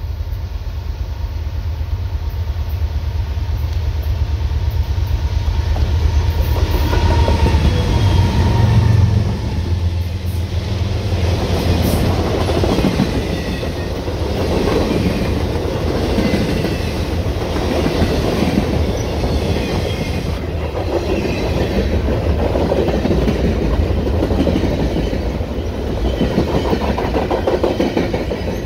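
Freight train passing: the diesel locomotives' deep engine rumble is loudest about nine seconds in. Then the loaded cars roll by with a steady clickety-clack of wheels over rail joints.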